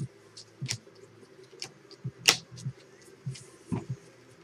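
Trading cards being handled and flipped: scattered light clicks and flicks of card stock, with one sharper snap a little past halfway.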